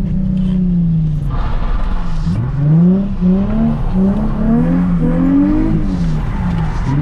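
Nissan 350Z's V6 engine revving up and down over and over as the car is drifted on wet tarmac, its pitch climbing and dropping with each stab of the throttle. A rushing hiss comes in about a second in and fades near two and a half seconds.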